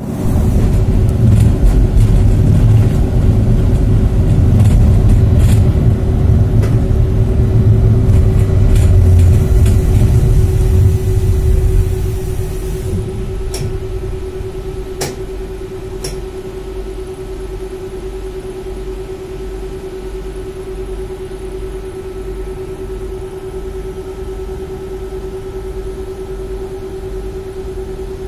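Tram running along its rails, heard from inside the car: a loud low rumble for about the first twelve seconds, then quieter running with a steady hum and three sharp clicks.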